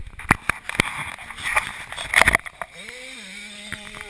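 Knocks, crackles and wind rumble of a moving GoPro. About three seconds in, a steady pitched drone sets in.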